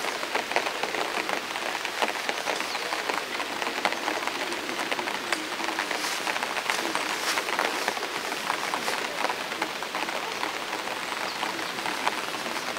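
Rain pattering on bare inscribed stone: a dense, steady patter of many small drops.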